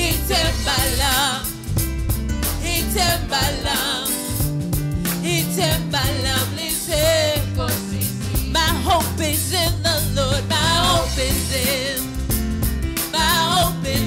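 Live gospel worship music: a woman sings the lead into a microphone, her voice wavering with vibrato, over a band with keyboard, a steady bass line and drums.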